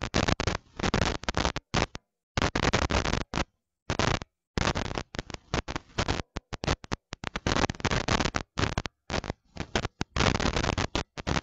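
Harsh, hissing noise with no tone in it, cutting in and out abruptly many times, with short gaps of dead silence between the bursts: a broken, dropping-out audio feed.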